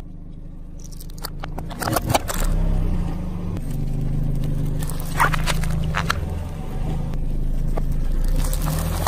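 Car engine running low and steady as its tyre crushes small soft and crunchy objects on asphalt. Clusters of sharp crackles and crunches come about one to two seconds in and again around five to six seconds in.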